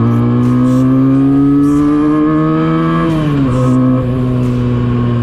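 Benelli 302S's 300 cc parallel-twin engine running under way, its pitch rising slowly as it pulls, then dropping about three seconds in and holding steady at a lower pitch.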